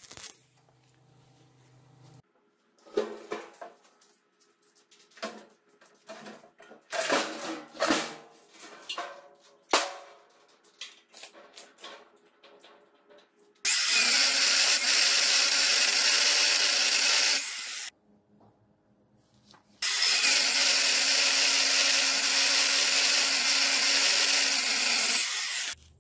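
Abrasive chop saw cutting through a round metal bar: two long passes of loud, even grinding hiss with a short pause between. Before them comes a run of scattered knocks and clatter.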